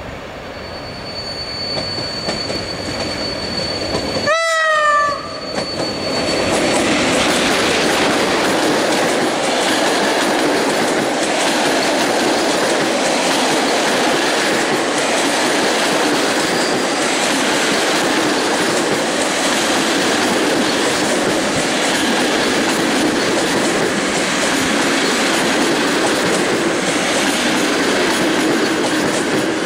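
A PKP EP07 electric locomotive hauling a passenger train gives a short horn blast about four seconds in as it approaches, with a thin high whine during the approach. Then the coaches pass close by with a steady rumble of wheels and a regular clickety-clack over the rail joints.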